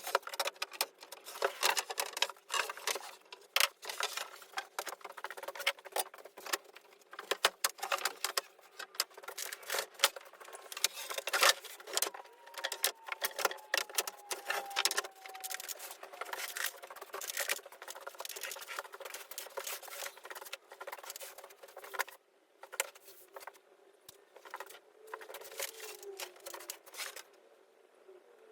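Rapid, irregular clattering and knocking, dense for most of the stretch and thinning out near the end.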